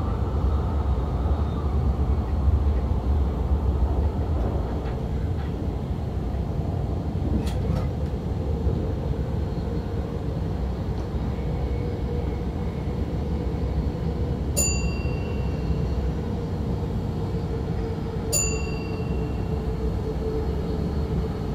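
Stadler GTW diesel-electric train running along the track, heard from inside the driver's cab: a steady low rumble, with a steady motor whine joining in from about halfway. Near the end there are two short high dings about four seconds apart.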